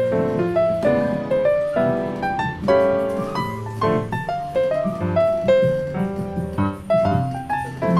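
Background piano music: a quick melody of short struck notes over low chords.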